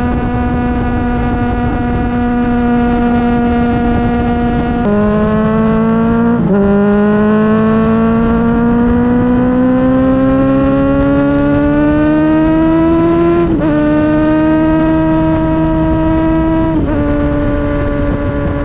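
Honda CBR600RR inline-four engine running at high revs under way. The engine note drops sharply with upshifts about five and six and a half seconds in, then climbs steadily as the bike accelerates. It drops again with further upshifts near thirteen and a half and seventeen seconds, over a rush of wind.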